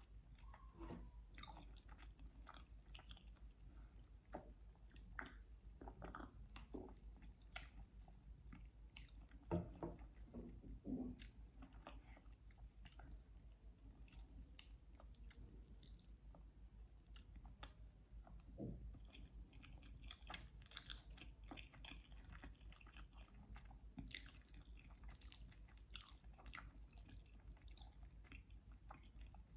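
Quiet, close-miked chewing and mouth sounds of a person eating sushi, with irregular small wet clicks and smacks and a few louder ones around ten and twenty seconds in. A faint steady low hum lies underneath.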